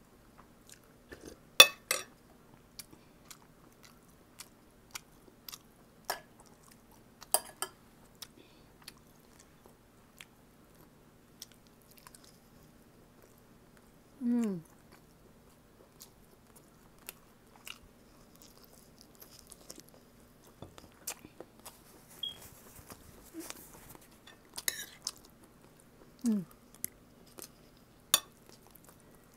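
Close-miked eating: chewing and smacking on pork and rice, with scattered sharp clicks of a spoon against the dishes and two short falling hums of "mm".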